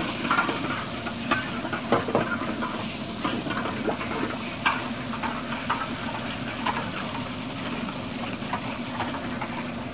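Sweet and sour sauce cooking in a hot wok while a spatula stirs it, with short scrapes and taps of the spatula against the wok throughout. The cornstarch-thickened sauce is being stirred until it thickens.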